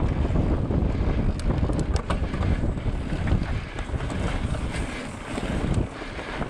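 Wind buffeting the microphone: a loud, uneven low rumble, with a few light clicks about one and a half to two seconds in.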